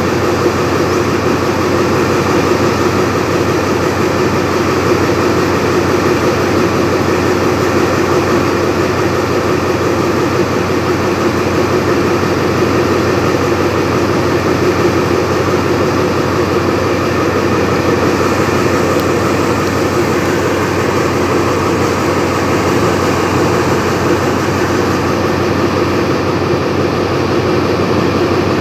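SRT diesel-electric locomotive 4134 idling steadily while standing at the platform, a constant engine hum with no change in pitch or level.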